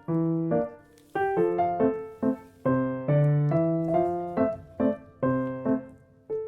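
Background music: a gentle solo piano tune played as a run of plucked-sounding notes that each fade away.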